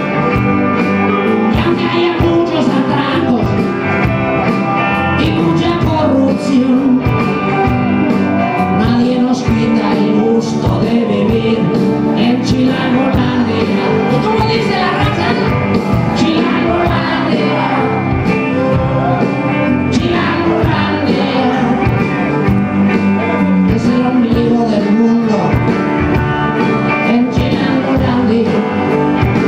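Live rock band playing loudly: drums, electric guitars and bass, with a voice singing over them.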